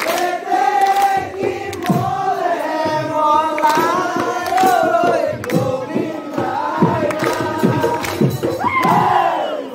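Husori: a group of men singing a chanted Assamese folk song together, marked by sharp percussive beats.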